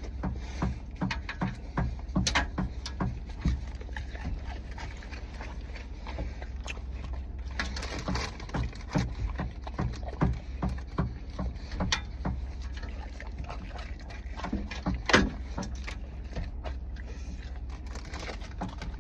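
Someone eating close to the microphone: chewing and mouth sounds, with many small irregular clicks and crackles and a few sharper snaps. A low, steady hum runs underneath.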